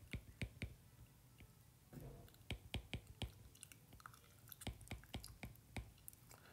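Stylus tip tapping and clicking on a tablet's glass screen during handwriting: a quiet, irregular run of sharp clicks.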